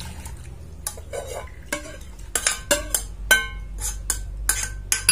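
Katu-leaf soup being emptied from a small pot into a ceramic serving bowl, with a quick run of sharp, briefly ringing clinks of metal on crockery as the last leaves are scraped out. The clinks start about a second in and come thickest over the last couple of seconds.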